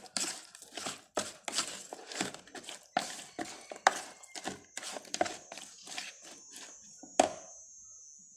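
Repeated sharp knocks of kitchen food preparation, irregular at about two to three a second. A faint, steady high whine joins about halfway in.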